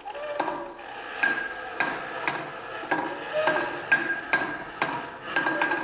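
Hand-cranked winch of a wooden model crane turning to hoist a two-brick load: a steady run of sharp clicks, about two a second, many with a short ringing tone.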